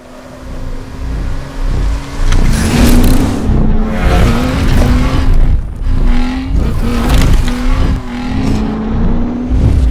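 Sound-designed race car engine noise, revving with short pitch glides, fading in over the first couple of seconds. Repeated swelling whooshes sit over it about once a second.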